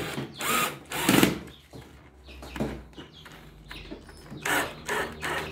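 Small 12V cordless drill-driver driving a screw into wood in short bursts, loudest in the first second and a half, with another burst about four and a half seconds in.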